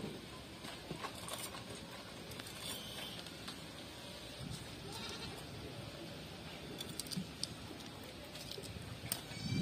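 Faint animal calls over low outdoor background noise, with a short pitched cry about halfway through.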